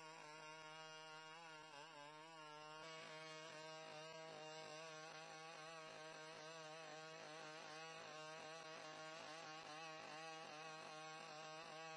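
Near silence, with only a faint wavering tune in the background.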